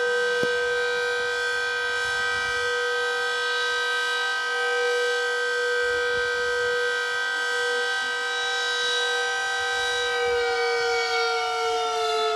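Outdoor tornado warning siren sounding one steady high tone with many overtones, then starting to wind down about ten seconds in, its pitch falling. The siren is fire-damaged and its rotator is not working. A single click sounds about half a second in.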